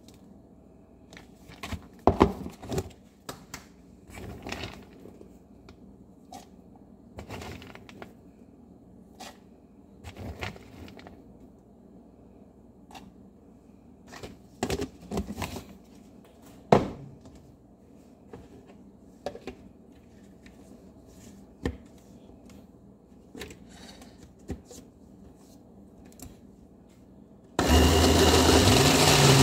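Scattered clicks and knocks of ingredients and utensils being handled around a glass blender jar. Near the end a countertop blender's motor starts and runs loud and steady, mixing a protein shake.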